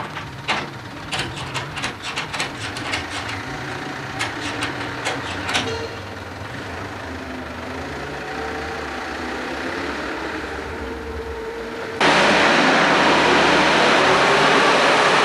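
Vehicle engine idling, with a quick string of sharp metallic knocks in the first six seconds. About twelve seconds in, a much louder steady rushing noise cuts in suddenly.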